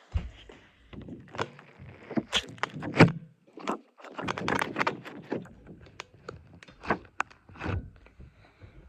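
Irregular close-up clicks, knocks and crackling from objects being handled, with the loudest knock about three seconds in.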